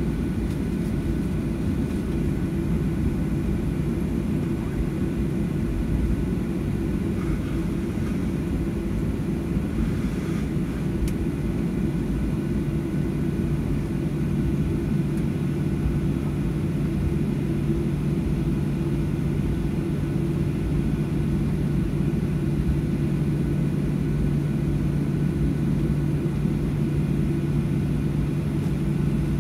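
Boeing 737-800 jet airliner with its CFM56 engines running: a steady, even rumble with a low droning hum.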